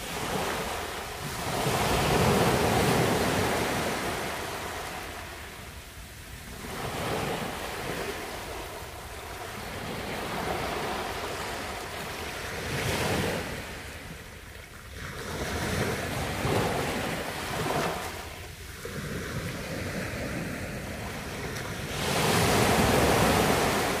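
Small sea waves breaking at the shoreline and washing up and back over a beach, swelling and ebbing in slow surges every few seconds. The biggest surges come about two seconds in and again near the end.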